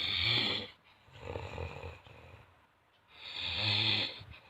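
A sleeping person snoring heavily: two loud, rasping snores about three seconds apart, each followed by a softer one.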